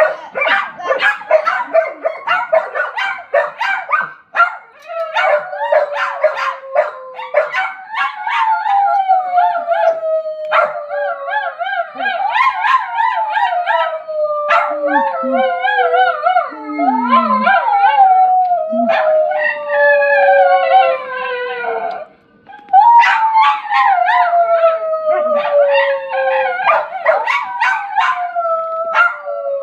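Small white dog barking and yipping rapidly, then howling in long wavering wails that fall in pitch, broken by short yips. The howling stops briefly about three quarters of the way through, then starts again with a higher wail that slides down.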